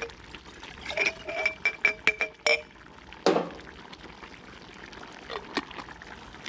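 Glass jars of tomato sauce being handled: sauce poured from one jar into another, then a quick run of about six ringing glass clinks about a second in. A single knock follows, and a few faint clicks come near the end.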